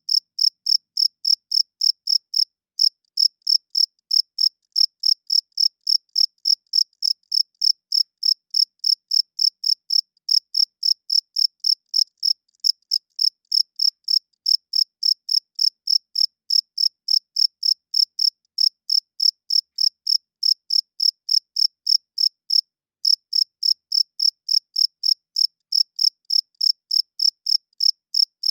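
A male cricket chirping: short, evenly spaced high-pitched chirps, about three a second, with clean silence between them and a brief break about two-thirds of the way in.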